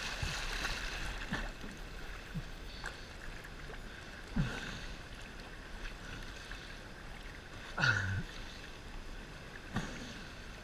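River water lapping and splashing against an action camera held at the surface by a swimmer, with a few louder splashes, the loudest about eight seconds in.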